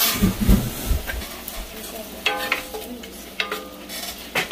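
Lobster meat sizzling in butter in a cast-iron skillet while the pieces are pushed around the pan by hand. There are a few thumps and short squeaks from the pan, and a sharp knock near the end.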